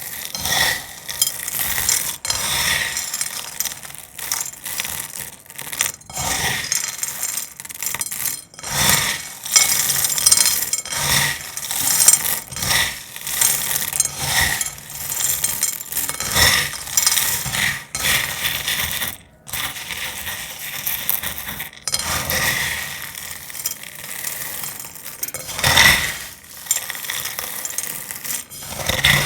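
Brittle dried cornstarch crackling and crunching as it is crushed, a dense, irregular run of crisp crackles with louder snaps every second or so.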